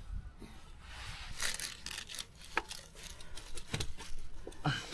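Hands working at a pitbike carburettor and its fuel hose, with stretches of rubbing and rustling and a few sharp clicks, including one near the end.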